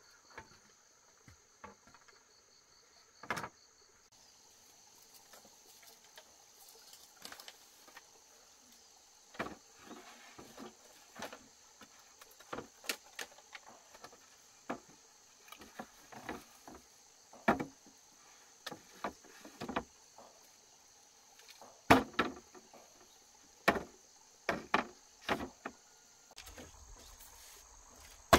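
Steady high insect chirring, with scattered irregular knocks and clunks of objects being handled or struck, the loudest about two-thirds of the way through.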